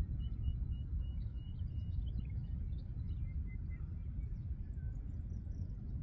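Birds calling faintly at a river at dawn: a run of short, evenly repeated notes in the first two seconds, then scattered chirps, over a steady low rumble.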